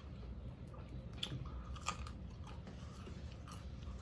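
Close-up chewing of a fried whiting sandwich, with scattered short crunches, the loudest about two seconds in.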